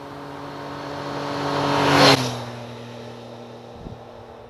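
A motor vehicle passes by. Its engine note builds to a peak about two seconds in, then drops in pitch and fades as it moves away. A light knock comes near the end.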